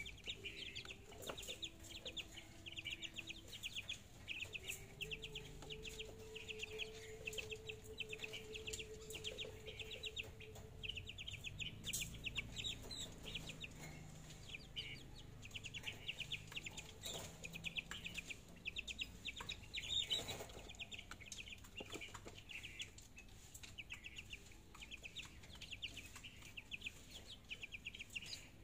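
Month-old chicks peeping and clucking: runs of fast, high cheeping go on throughout, with a few short taps and scrapes.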